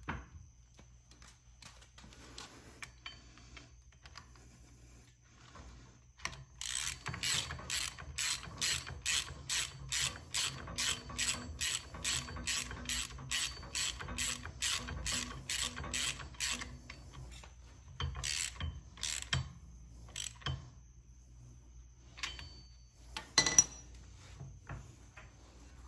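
Hand ratchet wrench being worked, sounding as a steady run of sharp clicks about two or three a second for about ten seconds, followed by a few separate clicks and knocks.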